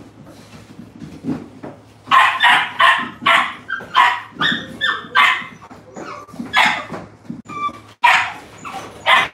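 Puppies play-fighting and yapping: quieter at first, then from about two seconds in a run of sharp barks and yips at roughly two a second, with a few short whining squeals.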